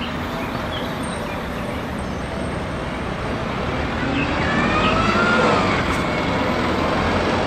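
Red single-deck city bus driving through a junction and past, its engine and tyre noise over traffic, growing louder as it comes closest about two-thirds of the way in.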